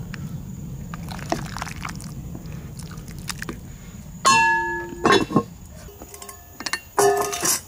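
A ladle stirs stew in a cast-iron Dutch oven, then cast-iron lid and metal ladle clank on the pot. There is a loud ringing clank about four seconds in, a couple more clanks around five seconds, and another ringing clank near the end.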